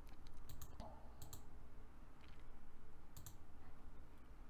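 Faint clicking at a computer: a few short sharp clicks, some in quick pairs, over a low steady hum.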